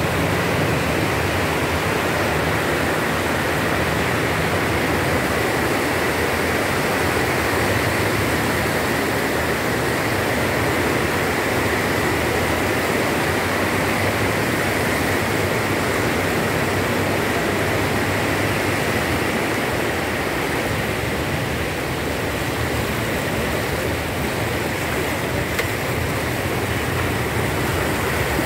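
Steady rush and splash of floodwater churned up by a car driving through a flooded street, with the car's engine humming low underneath.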